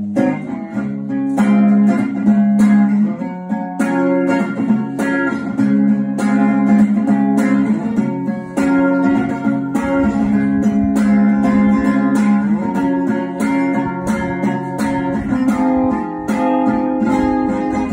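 Thin-bodied electric-acoustic guitar strummed in a steady rhythm, full chords ringing.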